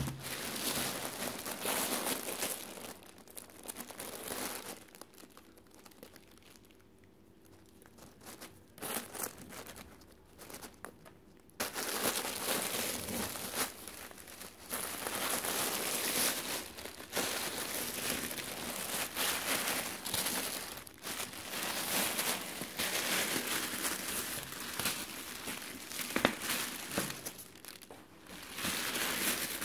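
Thin plastic wrapping crinkling and rustling as hands unwrap a new handbag from its packaging, with a quieter lull in the middle, then busier crinkling from about halfway on.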